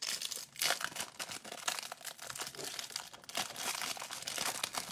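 Clear plastic wrapper around a stack of trading cards being torn open and crinkled by hand: a run of irregular crackles.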